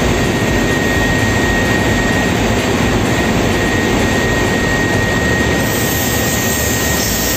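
Steady, loud drone of running machinery, such as nearby engines, with a constant high whine running through it. The hiss brightens about two-thirds of the way through.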